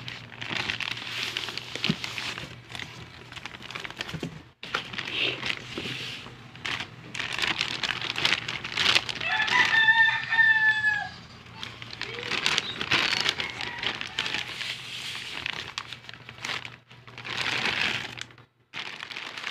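Clear plastic packaging bag rustling and crinkling in bursts as it is handled around a boxed carburetor. About halfway through, a long pitched animal call sounds over it, bending down at its end.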